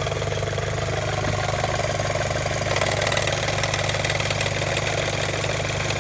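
Audi A4 (B7) engine idling warm, with a rhythmic flapping noise of unknown origin that the owner thinks may be a loose timing belt tensioner. The sound grows a little brighter about three seconds in.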